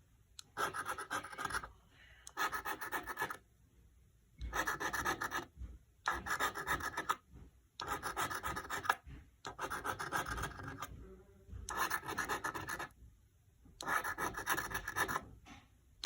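Scratch-off lottery ticket being scratched, the coating rasped away in about nine short bursts of roughly a second each with brief pauses between them.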